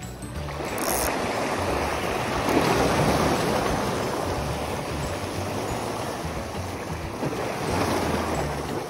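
Small sea waves washing and breaking over shoreline rocks, a steady rush that swells about two or three seconds in and again near the end.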